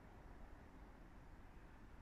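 Near silence: faint, steady background noise with a low rumble, no distinct events.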